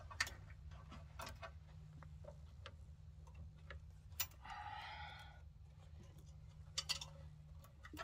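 Plastic zip tie being threaded and pulled tight around a tractor hydraulic line: scattered small clicks of the ratcheting tie, with one short buzzing zip about halfway through as the tail is drawn through the lock.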